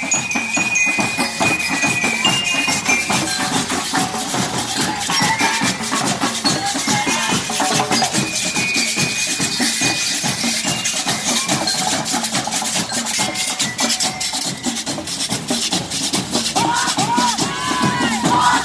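Marching rhythm band playing: a dense, steady drum beat with a ringing bell-lyre melody, most audible in the first few seconds. Near the end a crowd starts shouting over the music.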